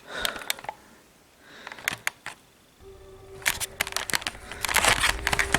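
Handling noise: a few sharp clicks and knocks, then rustling, with a low steady music drone coming in about three seconds in.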